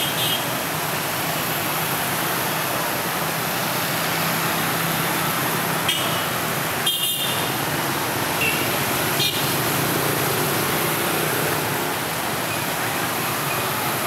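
Dense city traffic of motorbikes and scooters mixed with cars passing close by, a steady din of many small engines. Short horn beeps sound about six and seven seconds in, and once more briefly near nine seconds.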